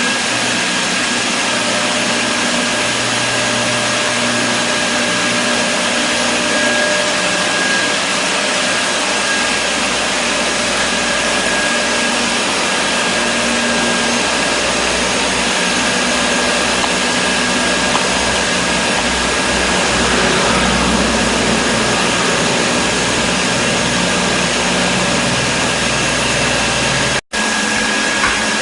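Steady machinery noise: a loud, even hiss and hum with a few faint steady whining tones. It breaks off for an instant near the end, then carries on.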